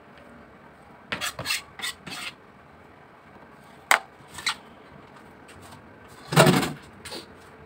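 A kitchen knife scrapes chopped onion off a plastic cutting board into a stainless steel mixing bowl in a few short strokes. Then come a couple of sharp clicks as the board and bowl are moved on the counter, and a louder rubbing knock a little after six seconds in.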